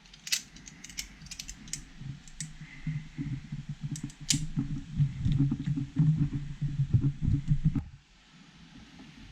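Small clicks and taps of a T-plug connector and its wires being handled and held during soldering, followed by a low, uneven rumbling handling noise that stops about eight seconds in.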